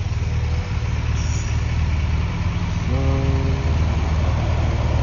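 Car engine idling steadily with a loud, deep exhaust rumble. The exhaust has been modified, and the officer says the muffler has been cut off.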